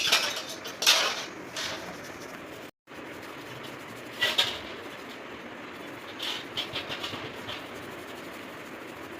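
Metal clinks and knocks of tools and parts being handled on a workbench: a few sharp strikes, then a quick run of small clicks.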